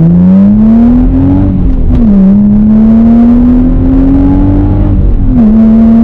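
2005 Infiniti G35's 3.5-litre VQ35DE V6 with a muffler delete, heard inside the cabin with the windows closed, accelerating hard through the gears. The engine note climbs, drops with an upshift about two seconds in, climbs again and drops with a second upshift about five seconds in.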